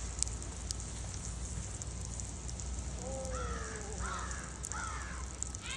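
A child yelping in a run of short, pitched, wordless calls while sliding on a sled, starting about halfway through and repeating about once every second, over a steady low rumble.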